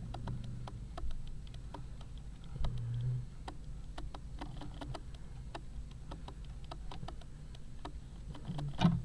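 Camera autofocus clicking repeatedly and irregularly, several clicks a second, as the camera struggles to focus, over a low steady hum. A short louder sound comes near the end.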